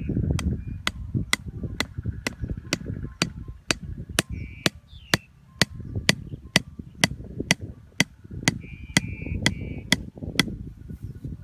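Hatchet head repeatedly striking the top of a small wooden stake, driving it into the ground with steady, sharp knocks about two a second, stopping shortly before the end.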